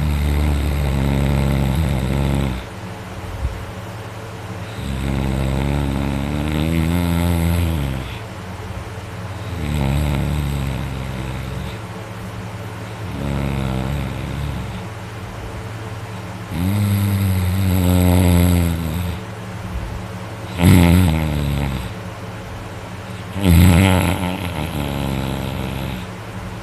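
A person snoring loudly: about eight heavy snores with a rattling pitch, each a second or two long and about three seconds apart, with two shorter, sharper snorts near the end.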